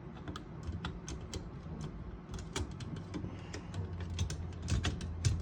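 Irregular small clicks and taps of an Olivetti Lettera 32's feeder roller and surrounding metal parts being worked down and out through their slot, over a low hum.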